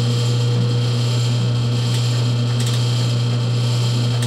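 Delta Rockwell 7-inch metal shaper running with a steady hum, with a few faint clicks from the feed mechanism about halfway through. The feed's new pawl is not yet engaging properly.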